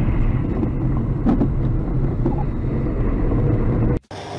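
Steady, loud low rumble of road and engine noise inside a moving car's cabin. It cuts off abruptly near the end and gives way to quieter audio with faint steady tones.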